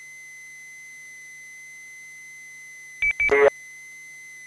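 Two-way radio channel between transmissions: a steady high tone hums on the open channel. About three seconds in, a quick run of short beeps and a half-second burst come as a transmitter keys up.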